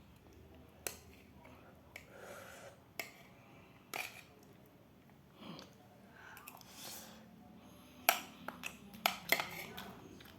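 Eating sounds: scattered sharp clicks and taps, then a quick run of louder ones near the end.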